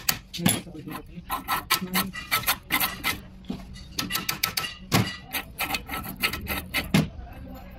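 Flat steel pick scraping and clicking against the input-shaft end of a Suzuki Ravi steering box, in quick, irregular strokes of metal on metal.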